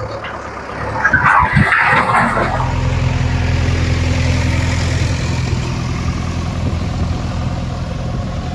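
JCB 3DX backhoe loader's diesel engine running with a steady low hum, after a couple of seconds of irregular clattering at the start.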